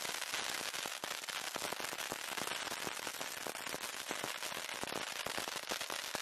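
Ground firework fountain spraying sparks: a steady hiss laced with dense, rapid, irregular crackling.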